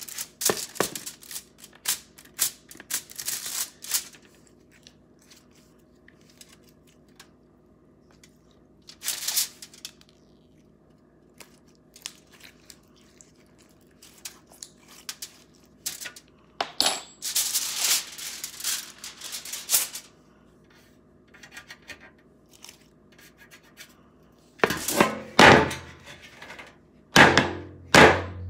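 Aluminium foil crinkling and rustling as slime is worked on it and the foil is pulled off a metal baking sheet. Near the end the bare baking sheet clatters and knocks as it is handled.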